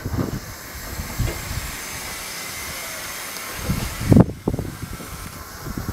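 Steady hiss of steam from a standing GWR 2800-class steam locomotive, No. 2807. It is broken by a few low thumps, the loudest a little past four seconds in.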